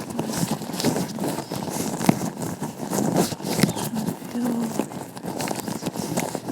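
Vinyl-latex gloved hands rubbing, tapping and scratching right at the microphone, making a dense run of irregular small clicks and crinkly glove rustles.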